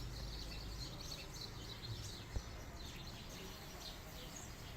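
Small birds chirping over and over in quick high, falling notes against a steady low background hum, with a single sharp knock about two and a half seconds in.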